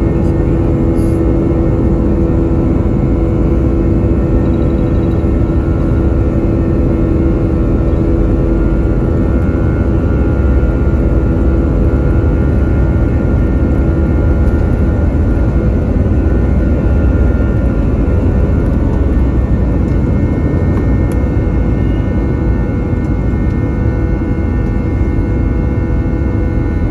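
Airbus A320's IAE V2500 jet engines heard from inside the cabin: a steady, loud rumble with several constant engine tones humming over it.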